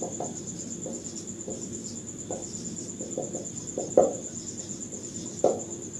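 Marker pen writing on a whiteboard in short strokes, with two sharper taps about four and five and a half seconds in. Behind it runs the steady high trill of a cricket.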